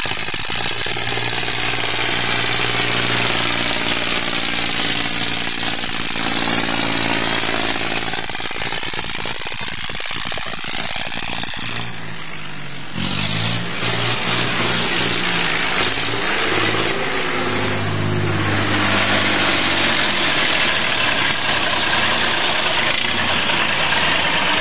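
Tractor diesel engine running on an 80% jatropha biodiesel, 20% fossil diesel blend, its pitch rising and falling as the engine speed changes. The sound drops away briefly about halfway through and comes back abruptly.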